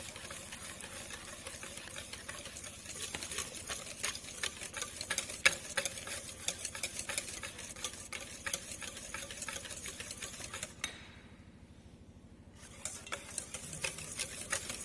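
Wire whisk clicking rapidly against a stainless steel bowl, beating milk and oil into a whisked egg yolk and sugar mixture for a sponge batter. The whisking stops for about two seconds after ten seconds or so, then starts again.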